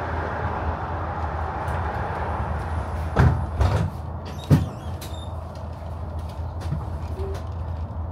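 City bus heard from inside, its engine running with a steady low rumble while the road hiss dies away, as when the bus slows. Two loud clunks, about three and four and a half seconds in.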